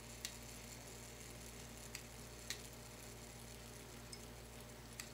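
Four faint, unevenly spaced clicks from a clock movement's strike train as it runs through its count, over a steady low hum.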